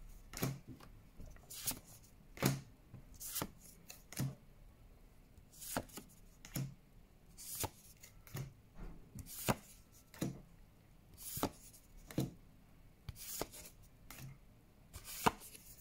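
Pokémon trading cards being flipped through one at a time, each card slid off the stack with a short, crisp card-on-card swish, about one a second.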